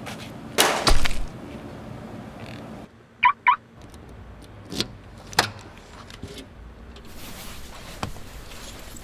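A single loud pistol shot just under a second in. About three seconds in come two short high chirps, then a couple of sharp knocks.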